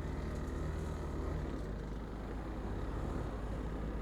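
Motorcycle engine running steadily under way on a rough dirt road, a low even throb.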